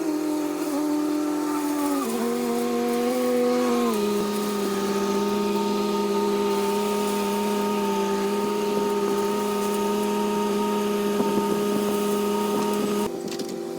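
Bobcat S100 skid steer engine running steadily, its pitch stepping down about two seconds in and again about four seconds in, then shifting once more near the end.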